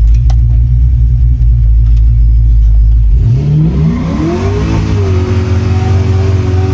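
LS V8 in a 1949 Ford single spinner running with a low rumble, then revving up sharply about three seconds in and held at high revs.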